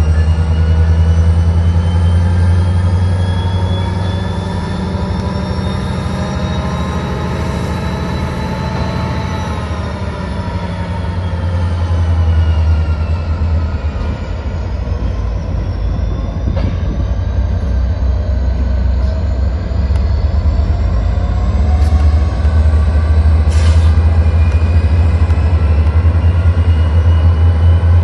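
Diesel yard locomotives running and moving a cut of rail cars, with a steady low engine drone. Several higher tones slowly rise in pitch for about nine seconds, then fall away. A short high squeal comes near the end.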